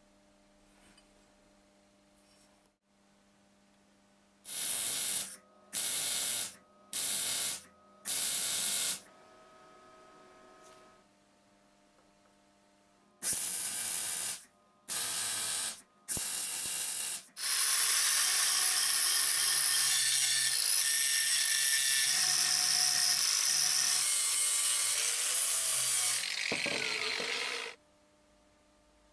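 Electric arc welding on steel plate: seven short welds of about a second each, then one long weld running about eight seconds.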